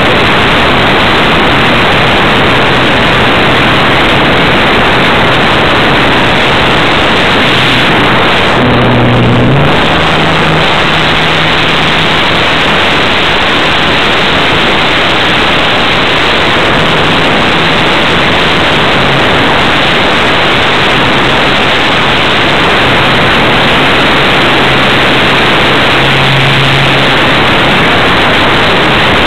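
Loud, steady rushing noise picked up on board a radio-controlled model airplane in flight, with a low motor hum that steps up in pitch about nine seconds in.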